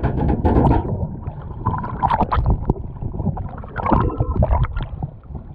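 Water splashing and gurgling around a GoPro camera in the open ocean, over a constant low rumble and irregular sloshes and clicks, heard muffled through the camera's waterproof housing.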